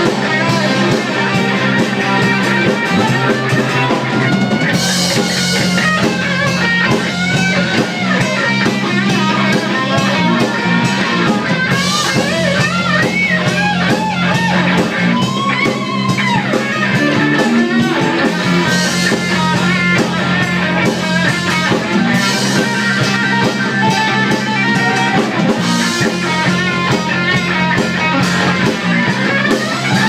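A live rock band playing: electric guitars, electric bass and drum kit, with a woman singing lead, and cymbal crashes every few seconds.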